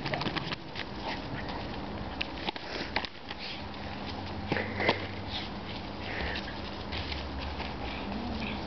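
Dog playing tug with a rag toy: its breathing and huffing as it pulls, with scattered short scuffs and clicks of its paws and the toy.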